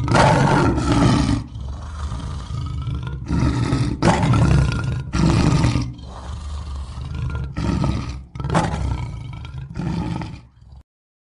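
A lion roaring loudly: a string of deep roars, each about a second long, coming one after another and then cutting off suddenly shortly before the end.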